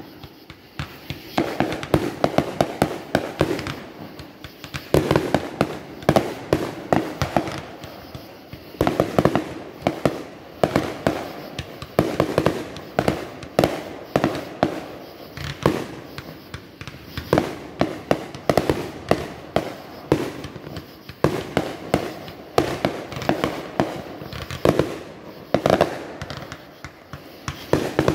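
Consumer aerial fireworks firing a rapid string of shots and crackling bursts, with clusters of sharp cracks every second or two.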